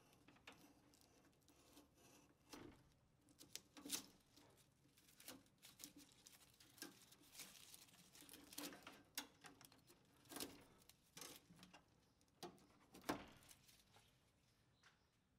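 Faint, irregular clicks, taps and rustling of insulated electrical wires being handled and pushed into a metal breaker panel, with a few sharper knocks scattered through.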